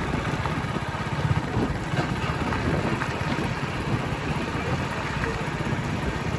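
Hero Splendor's small single-cylinder four-stroke engine running steadily under way, its fast low exhaust pulses mixed with wind buffeting the microphone.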